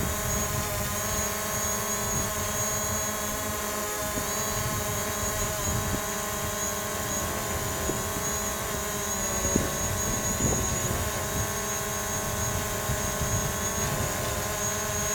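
DJI Mavic Pro quadcopter hovering, its four motors and standard plastic propellers giving a steady, high-pitched whine made of many tones, measured at about 73 dB on average.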